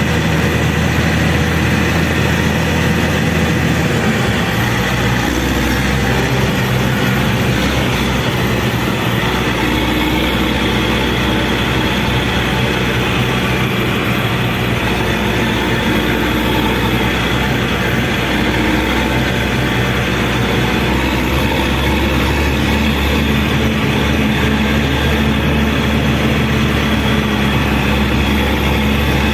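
Caterpillar 120K2 motor grader's diesel engine running steadily and loudly, its note shifting slightly a few seconds in and again about two-thirds of the way through.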